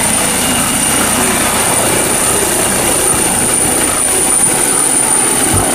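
Eurocopter EC135 helicopter lifting off and climbing: steady rotor and turbine noise with a high whine running through it.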